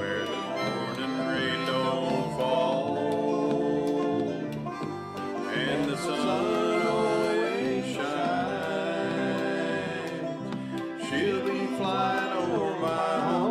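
Acoustic guitar strummed in a country-folk song, with a sustained melody line over it that bends and glides in pitch.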